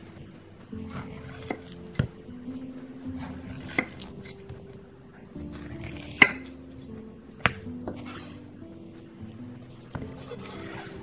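A kitchen knife slicing lengthwise through zucchini and knocking on a wooden cutting board: several sharp knocks, the loudest about six seconds in. Soft background music runs underneath.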